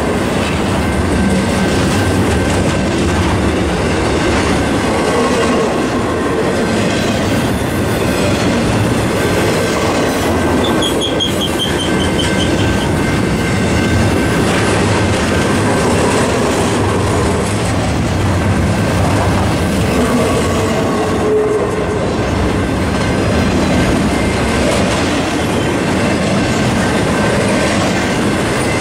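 Intermodal freight train of trailers on flatcars rolling past close by: a steady rumble with wheels clattering over the rail joints. About eleven seconds in there is a brief high squeal.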